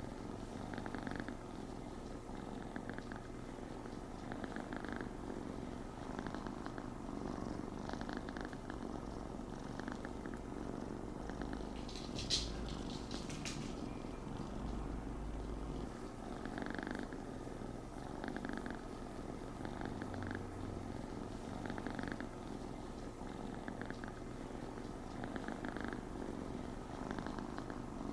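Cat purring steadily and close up, in a slow even rhythm of breaths about one per second or so, with a single sharp click about twelve seconds in.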